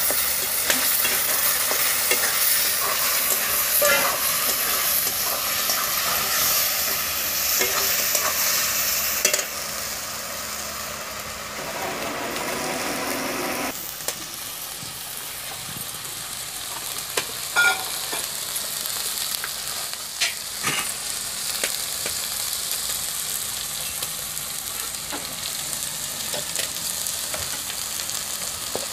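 Onion and masala paste frying and sizzling in a metal kadai while a metal spatula stirs and scrapes the pan, with scattered clicks of spatula on metal. The sizzle turns quieter about nine seconds in.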